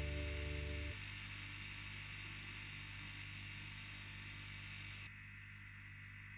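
Small engine of a grass-cutting machine running steadily, fairly quiet; the level steps down about a second in and again near the end.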